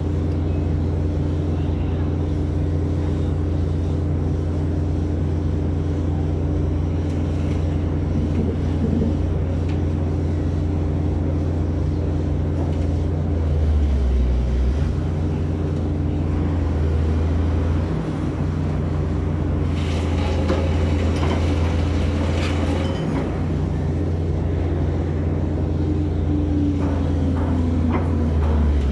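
Hydraulic pile-pressing machinery running steadily: a Giken Silent Piler's hydraulic power unit drones with a low hum while the piler presses a pile into the ground. A hissing noise joins about two-thirds of the way in.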